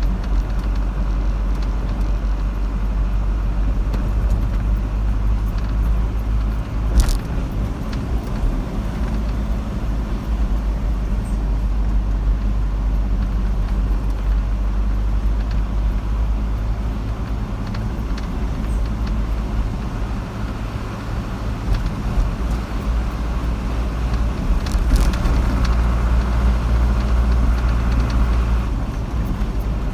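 Car driving along a road: a steady low rumble of engine and road noise, with a sharp click about a quarter of the way in and another later on.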